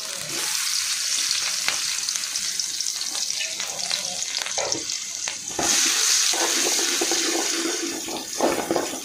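Chopped vegetables frying in hot oil in a metal kadai, a steady sizzle that jumps louder about five and a half seconds in. A spatula stirs through them near the end, with a few light clicks against the pan.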